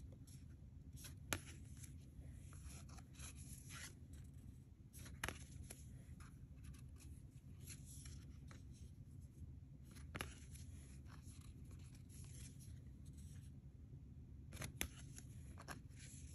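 Faint handling of tarot cards: cards slid and laid one at a time onto a pile on a cloth, soft rustles with a few light ticks several seconds apart.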